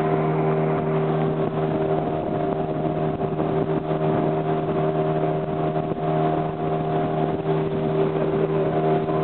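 Boat's outboard motor running steadily at cruising speed, a constant hum of several held tones over an even rushing hiss.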